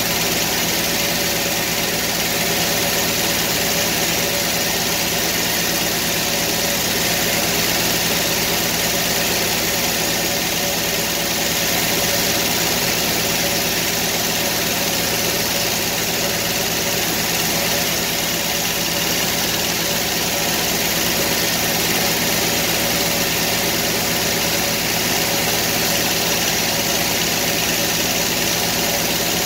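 Circular sawmill running steadily, its engine and spinning blade holding a constant pitch and level throughout.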